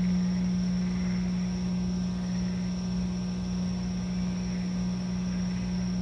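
Crystal singing bowl ringing out in one low steady tone that slowly fades.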